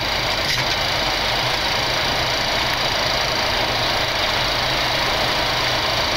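Boeing 737 flight deck on short final approach: a steady rush of airflow with the low hum of the engines underneath.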